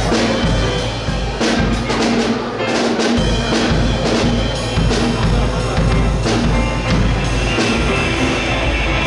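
Live rock band playing, with the drum kit prominent in frequent hits over a steady bass line.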